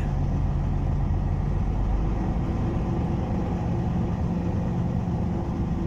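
Mercedes-Benz truck's diesel engine running steadily while the truck is being emptied, with a higher hum joining about two seconds in.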